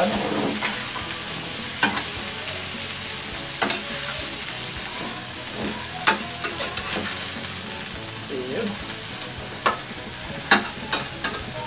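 Yardlong beans and pork sizzling in a wok while a spatula stirs them. Steady frying hiss with irregular sharp clacks and scrapes of the spatula against the pan.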